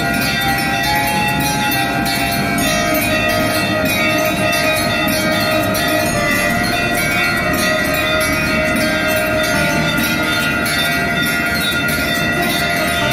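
Hindu temple bells rung rapidly and without pause during aarti, many overlapping ringing tones at several pitches over a dense clatter of strikes.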